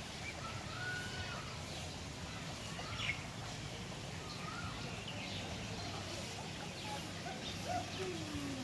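Scattered short bird calls over a steady low hum, with one longer falling call near the end.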